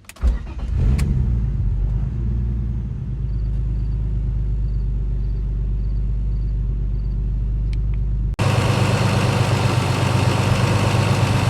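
Turbocharged BMW S52 straight-six engine starting: a short crank, then it catches, flares up briefly and settles to a steady idle. About eight seconds in the engine sound jumps abruptly louder and rougher and keeps running at idle.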